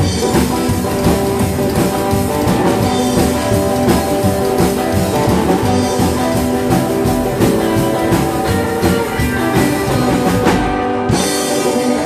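Rockabilly band playing live: electric guitar over a drum kit keeping a steady beat, with no singing.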